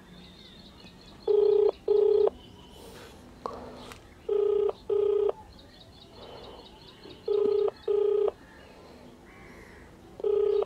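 Phone ringback tone played through a smartphone's loudspeaker: a double ring, two short beeps close together, repeating about every three seconds while the call rings unanswered at the other end.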